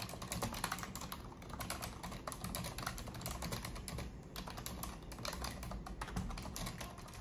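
Typing on a low-profile computer keyboard: a quick, irregular run of key clicks, with a short pause about four seconds in.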